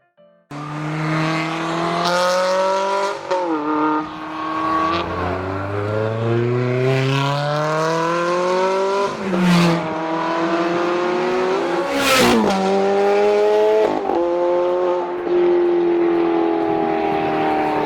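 Car engine accelerating hard through the gears. The exhaust note climbs in pitch, drops sharply at each of several upshifts and climbs again, then settles into a slowly falling note near the end.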